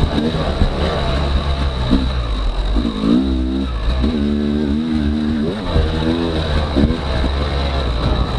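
Yamaha YZ250X two-stroke single-cylinder dirt bike engine revving up and down with the throttle, its pitch rising and falling several times.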